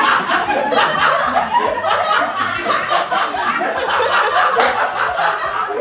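Several people laughing together, with overlapping chatter and exclamations mixed in.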